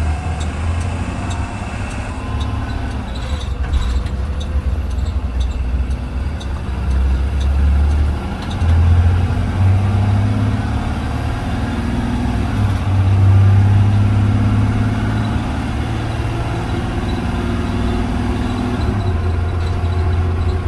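A 2020 Blue Bird Vision school bus engine heard from inside the bus, running steadily at first. From about nine seconds in, the engine note rises and drops back several times, as when the bus pulls away and works through its gears.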